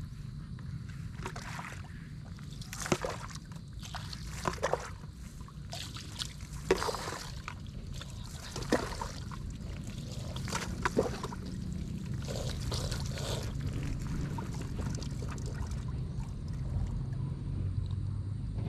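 Water poured from a dipper over a person's head and body, splashing down in separate pours every second or two, over a steady low rumble.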